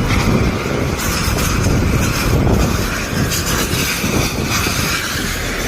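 Strong storm wind gusting and buffeting the microphone: a loud, rough, uneven rumble with no steady tone.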